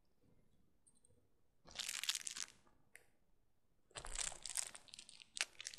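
Crinkling and crackling of packaging being handled, in two bursts: a short one about two seconds in and a longer, choppier one from about four seconds on.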